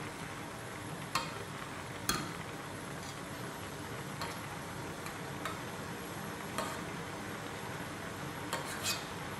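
Strawberry syrup simmering in a stainless steel saucepan, bubbling steadily while a metal spoon stirs it and clinks against the pan about half a dozen times.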